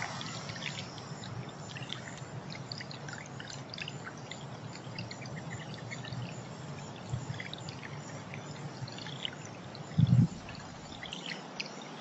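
Small bubbler fountain trickling and splashing steadily over stones, with a short low thump about ten seconds in.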